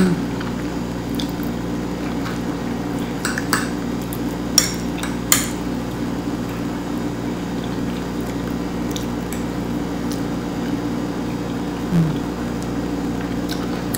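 A few light clinks of a metal fork against a plate, clustered between about three and five and a half seconds in, over a steady low hum.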